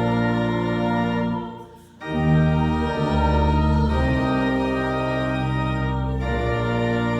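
Organ playing sustained chords; about a second and a half in, the chord dies away briefly, and then a new full chord comes in.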